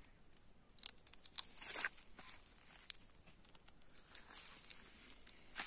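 Scattered light crunching and rustling in dry fallen leaves and grass, from footsteps and a hand rummaging for hazelnuts on the ground, a cluster of crunches about a second in and a few more near the end.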